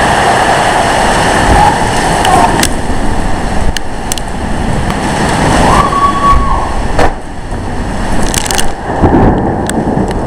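Strong microburst wind and driving rain buffeting the microphone in a loud, steady rush, with several sharp knocks scattered through.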